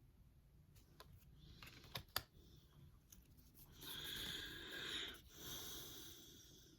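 Trading cards being handled: a couple of light taps, then two stretches of soft rustling and sliding.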